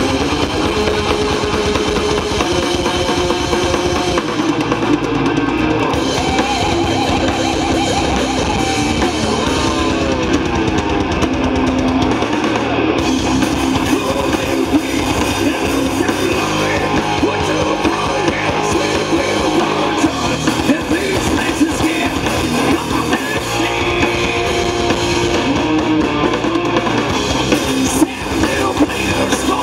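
Rock band playing live: electric guitar over a drum kit, loud and continuous.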